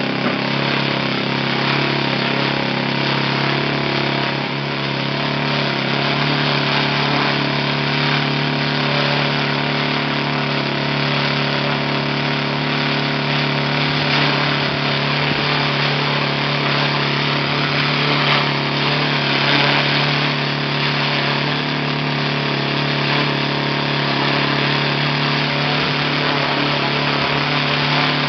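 OS FS-61 single-cylinder four-stroke glow model engine running steadily on its test stand during a bench test after a rebuild.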